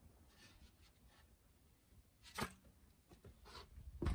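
Faint knocks and light clatter of wooden tool handles being moved and bumping together, with one sharper knock about halfway through and a few more knocks near the end.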